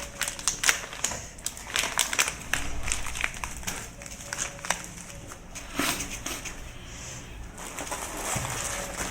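Cardboard box being opened and handled: an irregular run of crackles, scrapes and rustles of cardboard.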